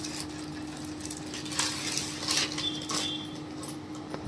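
Gift packaging rustling and crinkling as a present is unwrapped, in a few short rustles over a faint steady hum, with a sharp click at the end.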